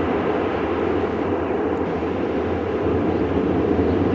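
Airbus A400M's four TP400 turboprop engines and propellers running as the aircraft rolls on the runway after landing: a steady droning roar with a strong low hum, growing slightly louder near the end.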